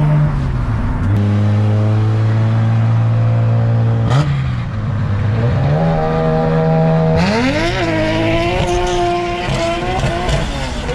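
Nissan S14 Silvia's RB30 inline-six engine heard onboard, holding steady revs with a few brief dips in pitch, then revving up and down unevenly with more hiss in the last few seconds.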